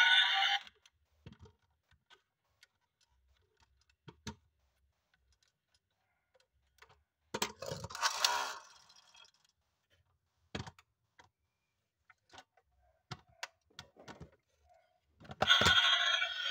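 Scattered small clicks and taps of a die-cast model pickup truck and its plastic parts being handled, with a louder scraping rattle lasting about a second about eight seconds in. A loud electronic, music-like sound cuts off under a second in and comes back near the end.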